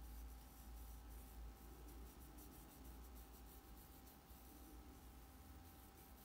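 Near silence: faint, soft scratching of a small paintbrush stroking over fabric, over a low steady hum and a thin steady tone.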